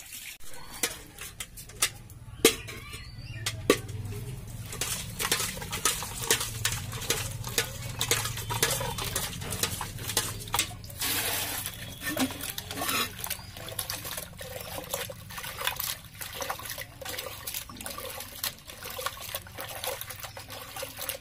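Water splashing and sloshing as cut fish pieces are washed by hand, first with water poured over them, then rubbed in water inside a steel bucket, with irregular sharp knocks of the pieces and hand against the metal.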